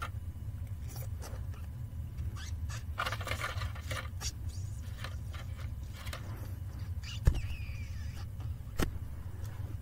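Handling noises of plastic toy figures being moved about on carpet around a crinkled aluminium-foil nest: small taps and rustles, a longer rustle about three seconds in and two sharp clicks near the end, over a steady low hum.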